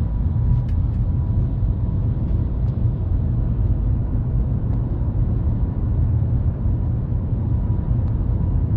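Steady low rumble of cabin noise inside the Shanghai Maglev train running at about 300 km/h, with a faint steady high tone over it.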